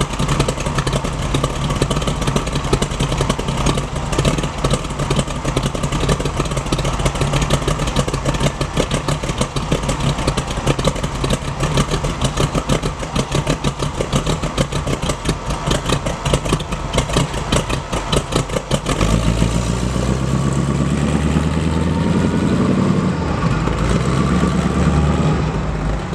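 Small-block 350 V8 with a Comp Cams Thumpr cam and chromed headers into sidepipes, idling with a lumpy, choppy hot-rod rumble. About 19 seconds in, the note turns deeper and climbs steadily in pitch as the engine is brought up in revs.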